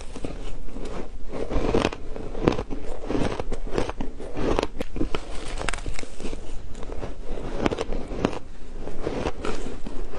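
Shaved ice crunching and being chewed close to a clip-on microphone: a dense, continuous run of crisp crackles and crunches with each mouthful.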